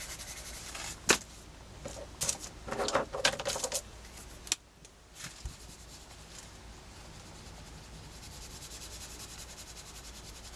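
Watercolour pencil scribbling over sketchbook paper, then a few clicks and knocks as art tools are handled. A softer, steady brushing of a water brush pen over the pencil marks follows, wetting them out.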